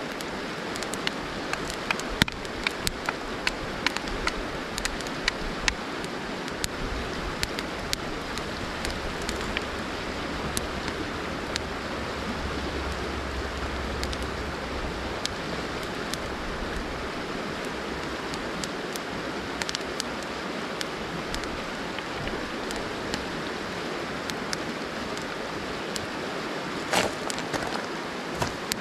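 Steady rush of a river flowing over stones, with frequent sharp crackles and pops from a burning stick-bundle Swedish torch. Near the end, a few louder crunches of footsteps on river gravel.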